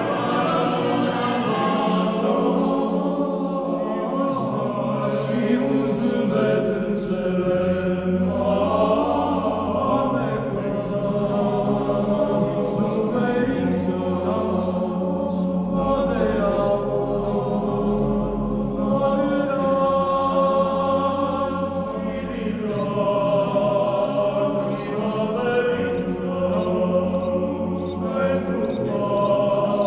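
A choir chanting Orthodox church chant in slow, sustained lines, with the pitch moving every few seconds and a low bass part entering at times.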